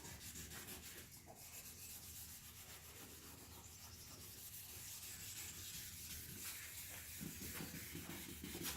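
Faint rubbing of 1000-grit wet sandpaper scrubbed by hand over a plastic headlight lens kept wet with water, taking off the oxidation.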